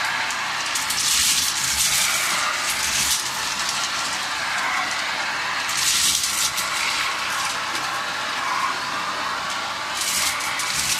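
Samsung vacuum cleaner running steadily, its hiss swelling and easing about every four to five seconds.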